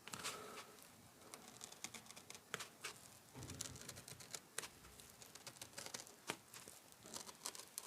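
Faint, irregular clicks and scratches of a knife blade cutting along a traced outline in ShadowFoam tool-insert foam.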